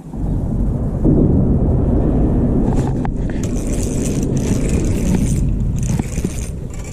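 Steady heavy rumble of road traffic crossing the bridge overhead, heard from underneath. From about three seconds in, rubbing and scraping of a hand handling the camera.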